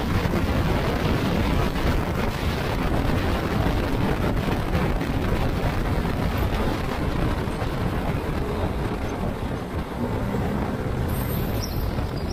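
Steady running noise of a vehicle on the move, engine and road noise together, with a faint engine hum showing through near the end.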